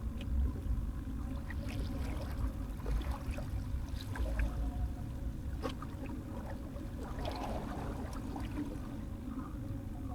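Water lapping and trickling at the shoreline over a steady low rumble, with scattered small clicks and a brief patch of crackling about seven seconds in.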